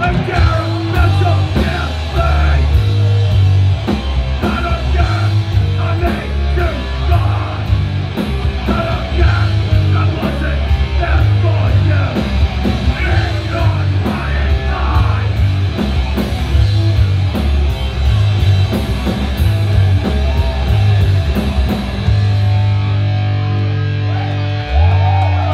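Live heavy band playing loud, with distorted guitars, a pounding bass and drums with crashing cymbals, and shouted vocals over the top. Near the end the cymbals stop and a chord is left ringing.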